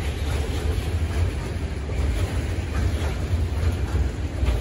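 Freight train of tank wagons rolling past, steel wheels running on the rails with a few faint clicks over rail joints, and wind rumbling on the microphone.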